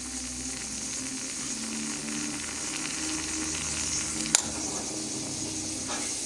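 Stovetop moka pot on a gas burner hissing and sputtering as brewed coffee rises into its upper chamber. About four seconds in, a sharp metallic click as the pot's hinged aluminium lid is snapped shut.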